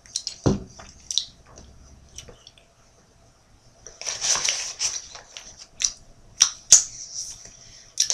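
Close-up eating sounds of a piece of cheese being chewed: scattered wet mouth clicks and smacks, a soft thump about half a second in, and a short rustle about four seconds in.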